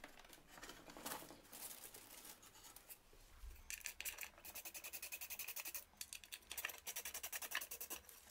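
Faint, rapid clicking of a hand ratchet unscrewing the fixing bolts from under a wooden transport board, about five clicks a second. It starts about three and a half seconds in.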